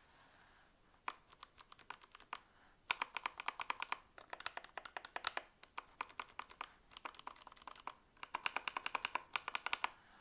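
Typing on a KZZI K75 gasket-mounted mechanical keyboard. A few scattered keystrokes come first, then quick runs of key clicks with short pauses between them.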